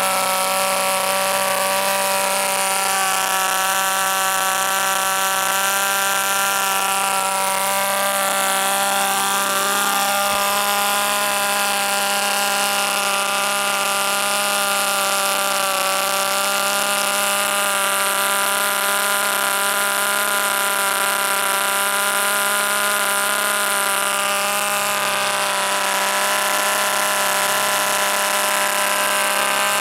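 Vintage 1950s Elf Six glow-plug model aircraft engine running steadily with a buzz like an angry bee, its pitch wavering slightly now and then.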